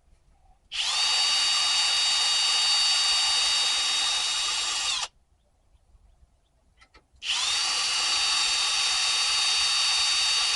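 Power drill running in two steady stretches of about four seconds each with a quiet pause between, its pitch dropping as it spins down at the end of each run; drilling into a diesel heater being taken apart.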